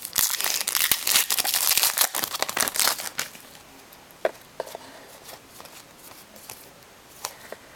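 A trading-card pack wrapper being torn open and crinkled for about three seconds, then a few faint clicks and taps.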